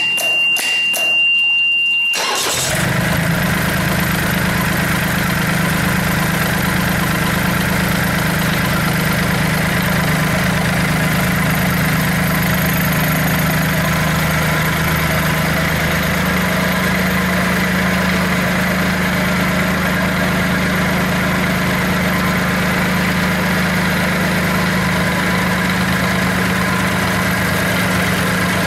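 Yanmar D40 outboard motor being cranked by its electric starter while a high steady warning beep sounds; about two seconds in the engine catches and then runs steadily at idle.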